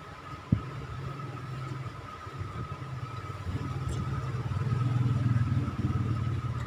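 A low engine hum that starts just after a short click, grows louder, then drops away near the end, over a faint steady whine.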